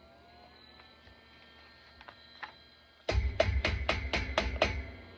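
A short burst of bass-heavy music with a quick, even beat, about five beats a second, starting about three seconds in and lasting under two seconds, after a quiet stretch.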